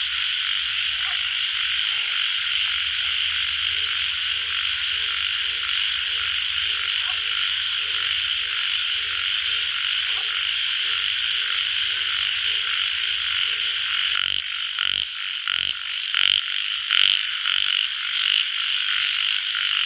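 Chorus of tiger frogs (Indian bullfrogs) calling, a dense steady din of many frogs. About two-thirds of the way in, a closer frog cuts in with a run of louder, separate croaks at uneven spacing.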